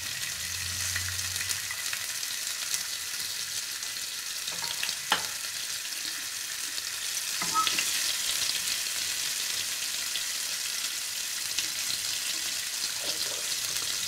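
Chopped green chilli and garlic sizzling in hot mustard oil with cumin seeds, a steady crackling hiss, stirred with a spatula. A single sharp click about five seconds in.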